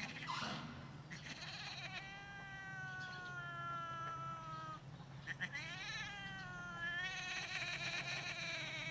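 A female cat yowling while a tomcat mounts and neck-grips her during mating: long drawn-out calls, first one held call slowly falling in pitch, then a wavering call that rises and holds, then another long call near the end.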